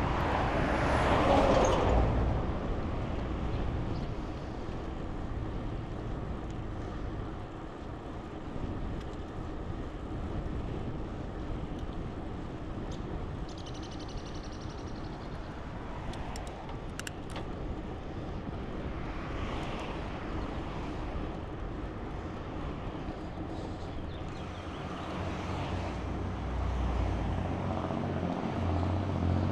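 City street traffic: a steady wash of passing cars and engines, swelling louder in the first couple of seconds and again near the end.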